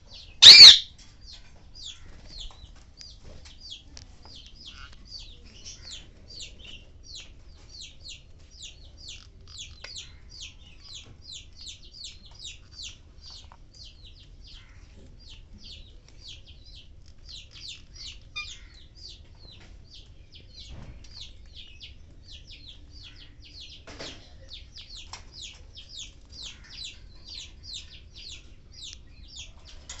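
Budgerigars chattering, a quick, steady run of short high chirps, about two or three a second. About half a second in, one very loud, shrill squawk cuts across it.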